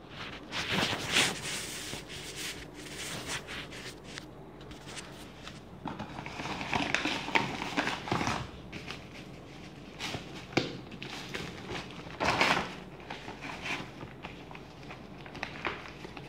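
Plastic courier mailer bag rustling and crinkling as it is handled, in irregular bursts, with louder crinkles about seven seconds in and again about twelve seconds in.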